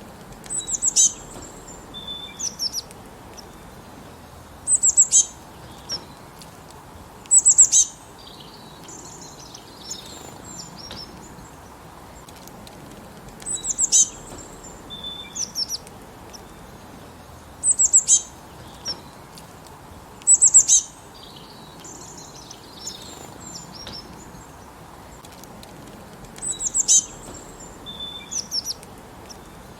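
Small birds chirping: short bursts of rapid, very high chirps every few seconds, with softer chirps in between.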